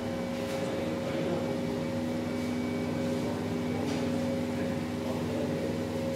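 Electric motors of automatic mawa-making kettles running with a steady hum made of several held tones, with a few faint clicks.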